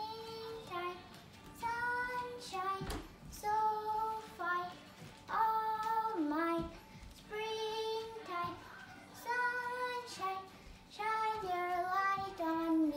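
A child singing a song in short melodic phrases with held notes, about seven phrases with brief pauses between them.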